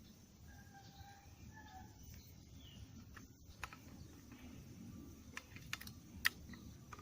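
Faint scattered sharp clicks and taps, the loudest about six seconds in, from fishing tackle being handled. A bird calls faintly twice in the first two seconds.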